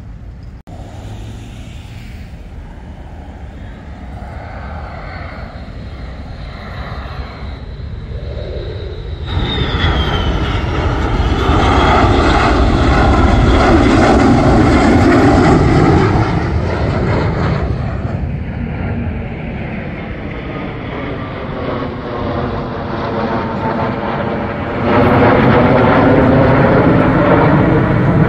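Military fighter jets flying over: the jet engine noise swells about nine seconds in, is loudest for several seconds, eases off with a shifting, swirling tone, then jumps up suddenly and stays loud near the end as a formation of three jets passes.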